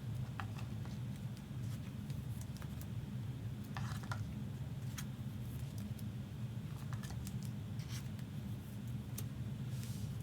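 Trading cards being handled and sorted: scattered light clicks and a few short slides of card on card, over a steady low hum.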